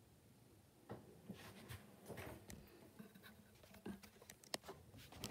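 Faint rustling and scattered light clicks of a recording phone being handled and lowered, starting about a second in, after a near-silent pause.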